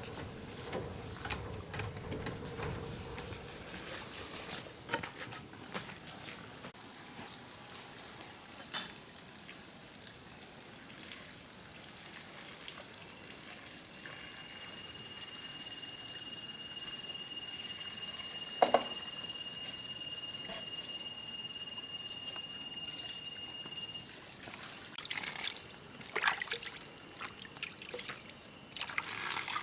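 Water trickling, with scattered light clicks and a sharper knock about two-thirds of the way through. A single steady high tone runs for about ten seconds in the middle.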